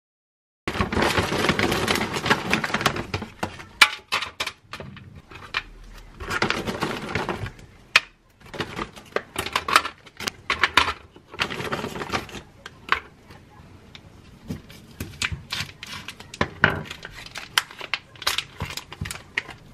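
Kitchen food-prep sounds: plastic food packaging rustling and crinkling in several long stretches, with many sharp taps and clinks of food and utensils on a steel tray and a wooden cutting board.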